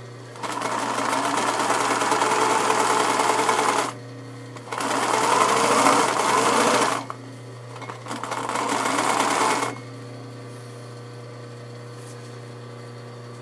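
Electric sewing machine stitching a seam in fabric in three runs, the first about three seconds long and the next two shorter, with brief stops between. A steady low hum carries on under the stitching and after the last run ends, about ten seconds in.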